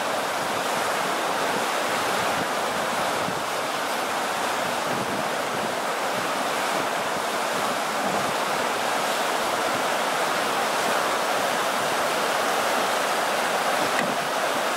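River rapids rushing steadily, a constant churn of whitewater with no let-up.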